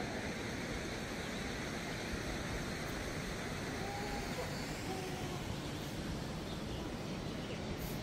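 Steady, even rushing background noise with faint distant voices.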